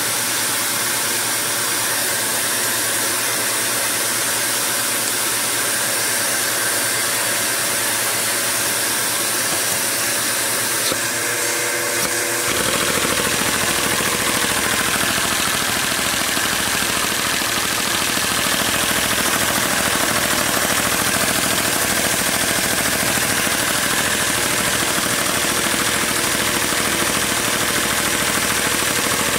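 LEGO overhead-cam vacuum engine running under its own power on vacuum suction: a steady mechanical clatter over a rushing hiss of air. About twelve seconds in, the sound gets a little louder and a deeper rumble joins in.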